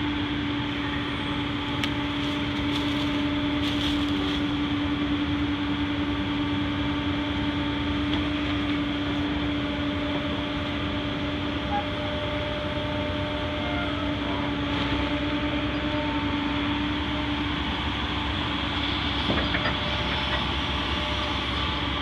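Excavator's diesel engine running steadily as it works dirt back into a hole, with a steady hum in its sound that drops away about three-quarters of the way through.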